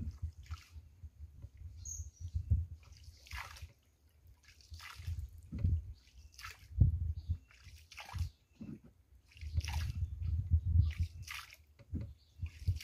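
Water splashing and sloshing in repeated strokes, about one every second or so, as a small boat is rowed along a canal.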